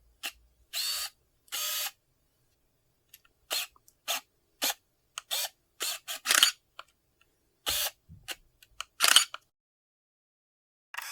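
Camera shutter sound effects: about a dozen separate shutter clicks at irregular intervals, with short silent gaps between them. Two near the start last longer than the sharp single clicks that follow.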